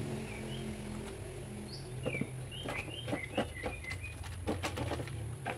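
Small birds chirping in short, scattered calls. From about two seconds in, a run of light clicks and knocks.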